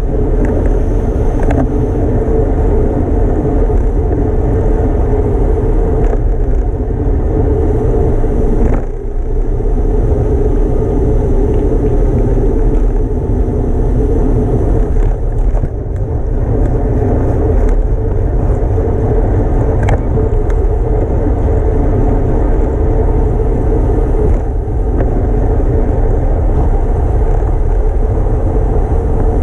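Wind rushing over the microphone of a camera on a road bicycle ridden at racing speed, a steady loud low rumble with a dip in level about nine seconds in.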